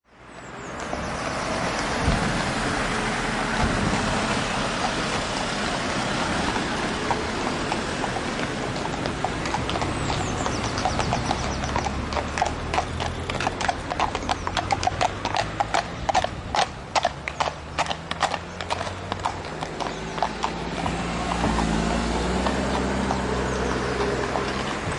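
Horses passing by: their hooves clip-clop, growing louder to a peak about halfway through, then fading away, over a steady background noise.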